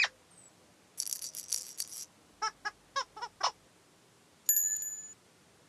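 Whimsical children's-show sound effects: a click, a brief rattling shimmer, five short squeaky chirps, then a single ringing bell-like tone that fades.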